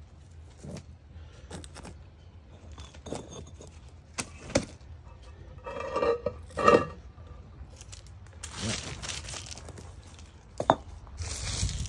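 Masonry work on stacked stone veneer: scattered clinks and knocks of stone pieces and trowels, with two louder ringing clinks about six and seven seconds in. A hiss comes in around nine seconds in and again near the end.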